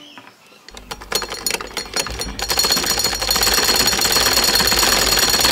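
Black Rinco treadle sewing machine starting up: a few separate clicks that speed up over the first couple of seconds, then a fast, steady mechanical clatter as it runs at sewing speed.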